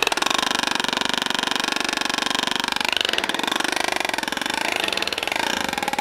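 Homemade U-joint driveshaft demonstration rig running: its motor-driven driveshaft, U-joints and sprockets make a fast, even rattling pulse that stays steady throughout.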